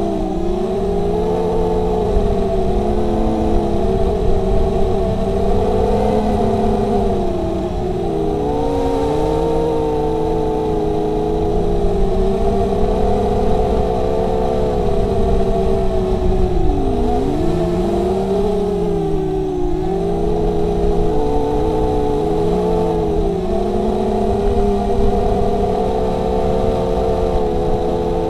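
Brushless motors and 5-inch propellers of a 250-size FPV racing quadcopter, recorded by the action camera on board: a steady buzzing whine of several close tones that rise and fall together as the throttle changes, over a low rumble.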